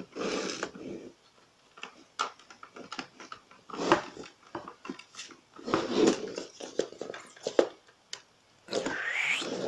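Hard plastic clicks and knocks as a toy RC stunt car is handled and turned over, mixed with short, irregular noisy bursts.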